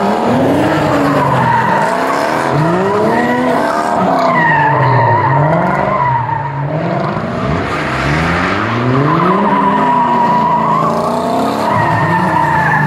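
Toyota Mark II drift cars sliding around a cone. The engines rev up and fall back again and again while the rear tyres squeal continuously in a wavering high whine.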